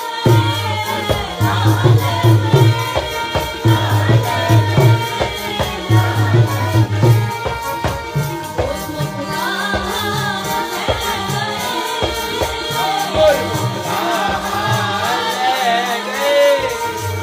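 Sikh kirtan: a woman sings a gurbani shabad over a harmonium's steady held reed chords, with a tabla playing a rhythm of low, repeated drum strokes.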